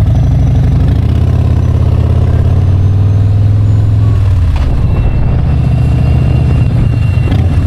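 Harley-Davidson touring motorcycle's V-twin engine accelerating away from a stop, its pitch rising for about four seconds, then dropping at a gear change and running steadily.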